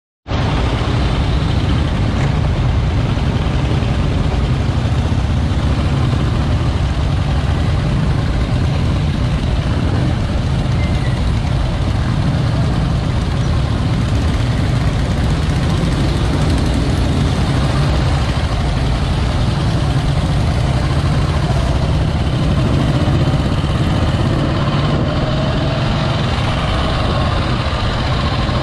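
Vintage motorcycle engine running steadily under way, heard from the rider's own seat, with a strong low rumble and the other bikes of the group riding ahead.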